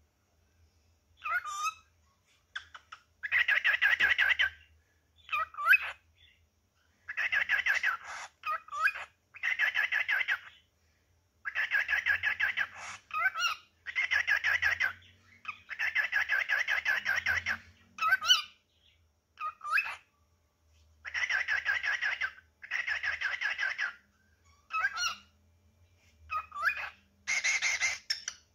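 Male cockatiel singing and calling for a mate: a run of chattering, rapidly pulsed phrases about a second long each, broken by short rising whistled notes.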